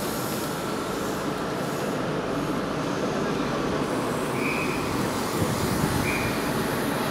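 Steady noise of a train running on the tracks, with two brief high squeaks about four and a half and six seconds in.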